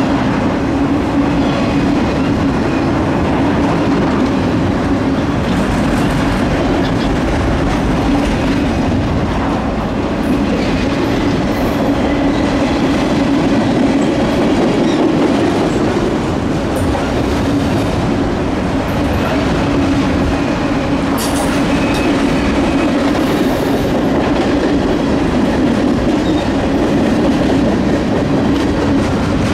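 Freight train cars rolling past on steel wheels: a steady rumble with the clickety-clack of the wheels on the rails.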